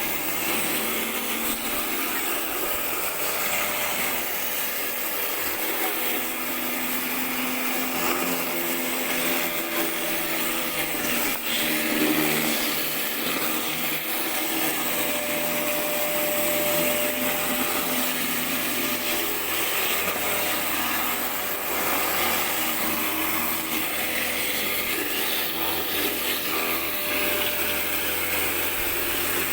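Pressure washer running steadily: the hiss of the high-pressure water jet with a steady machine hum underneath.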